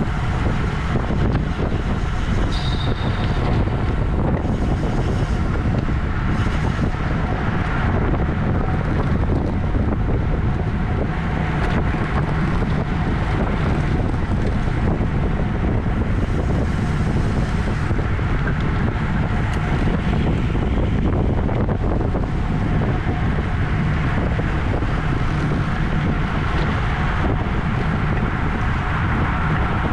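Steady wind rushing over the microphone of a road bicycle ridden at race speed.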